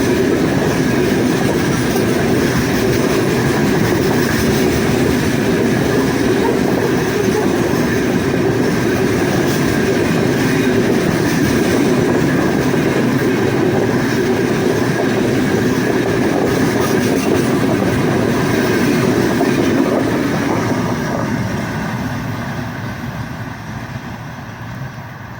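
Freight train wagons rolling past with a loud, steady rumble and wheels clicking over the rail joints. The sound fades away over the last few seconds as the train moves off.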